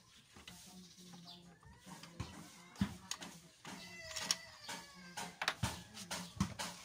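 Sharp metal clicks and knocks from hand work on a scooter's rear brake caliper, with a short wavering, cat-like animal call about four seconds in.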